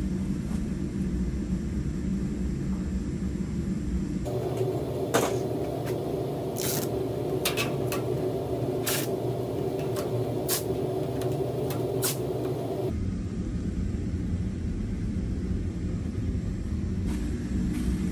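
Steady low rumble, with several sharp taps and clicks over a few seconds in the middle as hands handle the aluminium radiator and its fittings.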